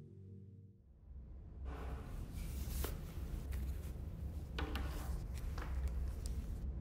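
A low held music tone fades out in the first second. Then quiet room tone with a low hum, soft clothing rustle and a few short clicks and taps as the man takes off and handles his headphones.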